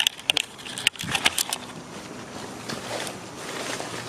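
A quick run of sharp clicks and knocks in the first second and a half, then soft shuffling: a small group of people moving in together.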